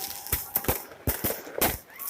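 New Year fireworks bursting overhead: a rapid, irregular series of sharp bangs, about six or seven in two seconds, with a faint thin whistle under them.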